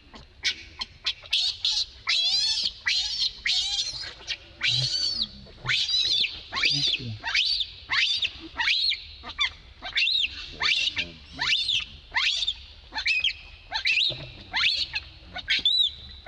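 Baby macaque crying in distress: a long run of shrill, high-pitched cries, each falling in pitch, coming about one to two a second. The baby has fallen down into a rock crevice.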